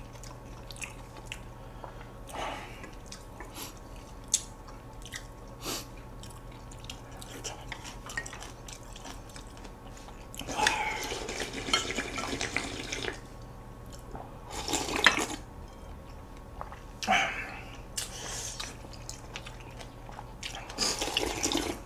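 Broth of samgyetang (chicken soup) slurped and drunk straight from tipped-up bowls, in several noisy bursts a few seconds apart, the longest about ten seconds in. Small clicks of cutlery on dishes come between them.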